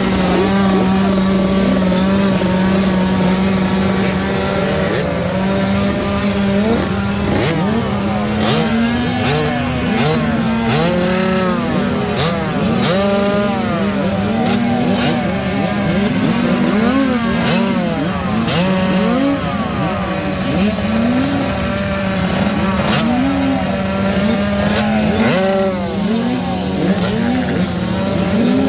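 A pack of 65cc two-stroke motocross bikes revving at the start line. Several engines are held at high steady revs while others blip up and down over and over, all overlapping into one loud, continuous racket.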